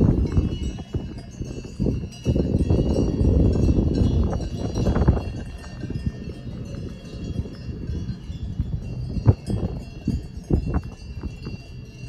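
Cowbells on grazing cows ringing in a continuous jangle, over a low rumbling noise that is loudest for the first five seconds.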